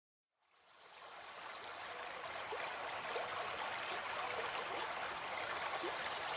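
Running water fading in from silence over about two seconds, then a steady rush with little bright blips scattered through it.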